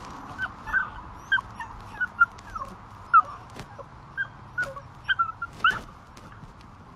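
Beagle puppy whimpering in a string of short, high whines that bend up and down in pitch, about a dozen scattered through, while it fakes a hurt leg.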